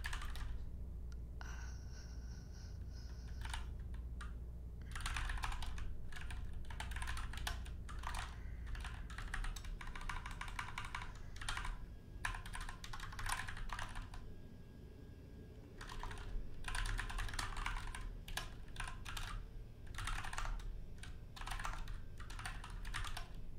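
Typing on a computer keyboard: short bursts of quick key clicks with brief pauses, and a longer pause of about two seconds past the middle.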